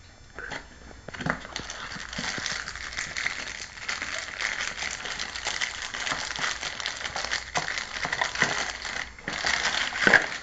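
Dog chewing on a phone: a dense, crackling crunch full of small clicks. It breaks off briefly near the end, then comes a louder crunch.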